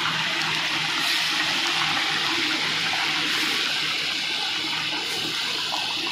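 Freshly washed raw chicken pieces dropped into a large karahi of hot oil, the oil sizzling and bubbling hard as they start to half-fry.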